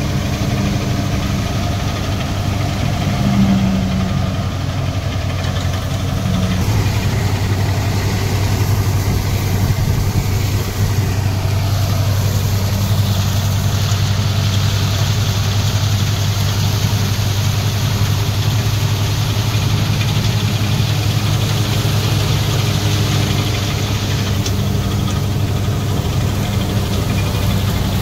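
Deutz-Fahr 4055 tractor's diesel engine running steadily under load while driving a Jagatjit straw reaper through the stubble. A steady hiss from the working machine grows louder about halfway in.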